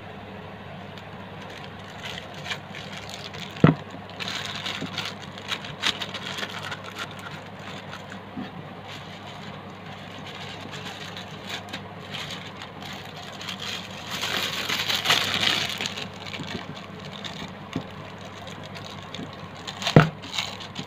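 Plastic bags rustling and crinkling as they are filled with thick bait dough and handled, with two sharp knocks, one about four seconds in and one near the end, over a steady low hum.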